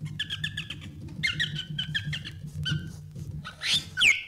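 Cartoon mouse squeaks: runs of short, high chirping squeaks, then a louder squeak near the end that rises and drops in pitch. A low hum sits under the first couple of seconds.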